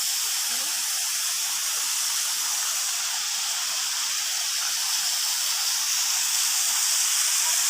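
Waterfall rushing in a steady hiss of falling water, a little louder near the end.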